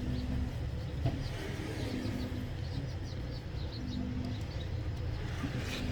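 A dove cooing: several short, low, steady hoots repeated every second or two, with faint high bird chirps in the middle and a steady low hum underneath.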